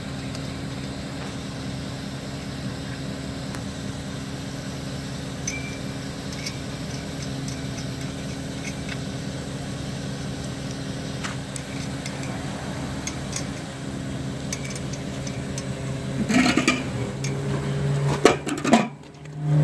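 A steady low mechanical hum, with a few sharp knocks and clinks near the end.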